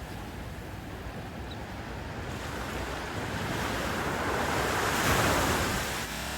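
Ocean surf: a wave's rush of water swells, peaks about five seconds in, and cuts off suddenly near the end.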